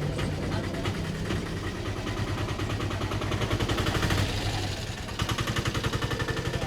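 Rapid percussive massage strokes, quick even slaps about nine a second, in two runs with a short break a little past the middle.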